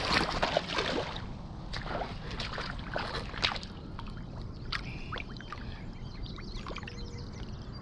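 Shallow river water splashing and sloshing as a person wades in and then holds a catfish in the water to release it. Sharp splashes are thickest in the first few seconds, then thin out to occasional small drips and swirls.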